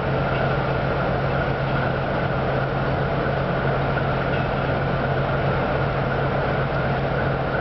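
Steady mechanical hum of train equipment at a railway station: a constant low tone over even noise, unchanging throughout.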